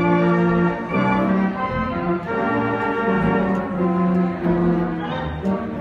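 Robert Morton theatre pipe organ playing a slow tune in full sustained chords, the notes changing about once a second.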